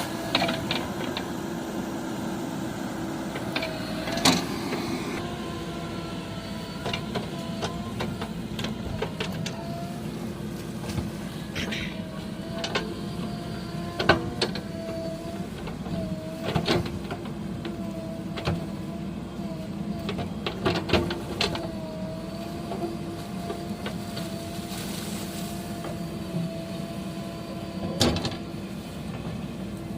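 A machine running with a steady, slightly wavering hum, with scattered sharp clicks and knocks throughout.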